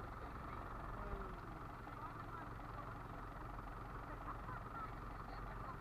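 Fishing boat's engine running with a steady drone, with faint voices over it.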